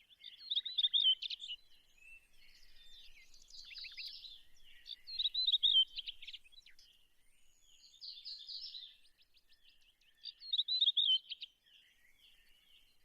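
Songbirds chirping and singing, with a loud warbled phrase repeating about every five seconds and softer twittering in between.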